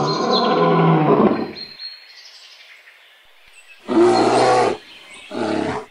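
Tiger roaring: one long low roar lasting about a second and a half. Two shorter roars follow, about four and five seconds in.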